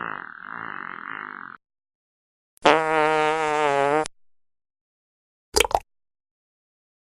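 A series of separate fart sound effects. A buzzy one trails off about a second and a half in. After a pause comes a loud, pitched, buzzy one lasting about a second and a half, and about a second later a very short, sharp one.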